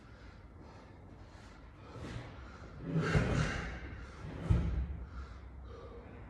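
Heavy, panting breaths from someone recovering between workout efforts, with two dull thumps about three and four and a half seconds in.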